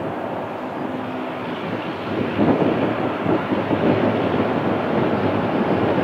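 Four-engine widebody jet airliner climbing out just after takeoff, its engines at takeoff power: a steady jet noise that grows louder and rougher a little over two seconds in.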